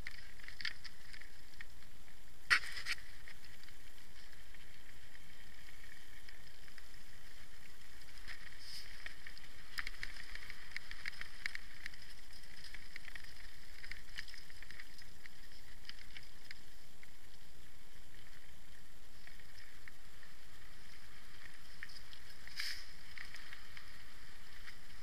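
Mountain bike rolling down a rocky singletrack, heard from the bike: a steady rattling hiss of tyres on loose stones and the bike shaking over the bumps, with a sharp knock about two and a half seconds in and louder bursts of clatter around ten and twenty-three seconds in.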